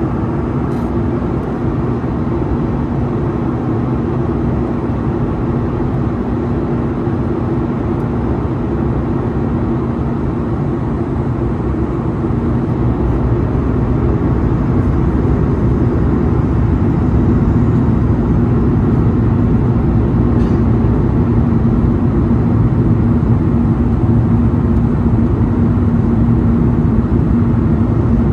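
Cabin noise aboard a Boeing 737 MAX 8, heard from a seat beside the wing: the steady drone of its CFM LEAP-1B turbofan engine and rushing air, with a low hum in it, growing a little louder about halfway through.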